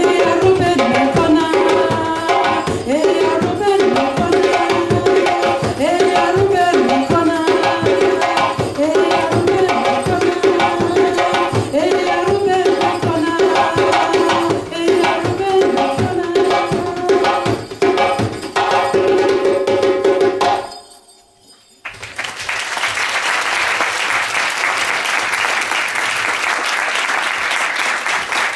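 Two djembe hand drums playing a fast, dense rhythm that stops about 21 seconds in. After a brief pause, an audience applauds.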